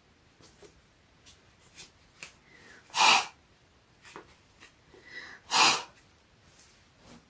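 Two sharp breaths forced through a running gaiter's fabric held over the mouth, about three and five and a half seconds in, a test of how freely air passes through it; soft rustles and ticks of the fabric being handled come between.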